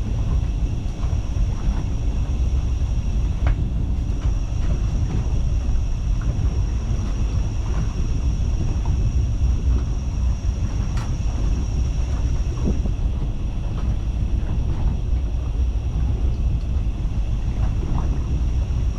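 Steady low rumble aboard a fishing boat at sea, with a thin high whine and a few light knocks.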